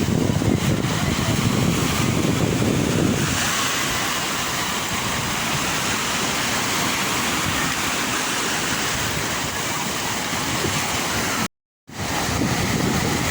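Sea waves washing on the shore as steady surf noise. About three seconds in it switches abruptly to a hissier wash, and near the end it drops out completely for a moment before the deeper surge returns.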